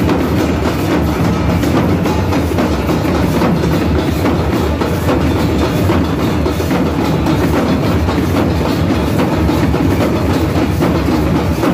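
Many Matua danka drums, large double-headed barrel drums beaten with sticks, played together in dense, unbroken drumming, with brass hand cymbals clashing along.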